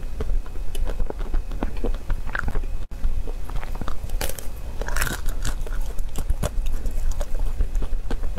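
Close-up crunching and chewing of a chocolate-coated ice cream bar, the hard chocolate shell with nut pieces cracking under the teeth. A louder bite comes about two and a half seconds in and a cluster of bites around four to five seconds in, with crackly chewing between.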